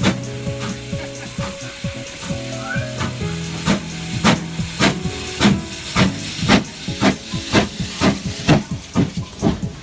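GWR 4575 'Small Prairie' class 2-6-2 tank locomotive working a train away, its chimney exhaust chuffing about twice a second and gradually quickening as it accelerates, with a hiss of steam. Music plays quietly underneath.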